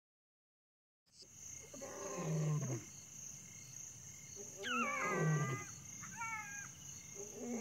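Male lion roaring at dusk: deep calls come every two to three seconds over a steady high chirring of crickets. The sound starts after about a second of silence.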